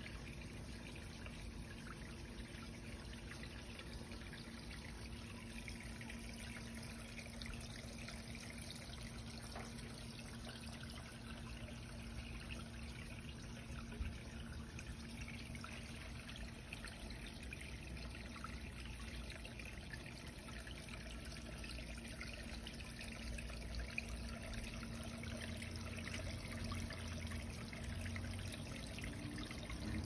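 Small garden stream trickling steadily over stones into a little pool.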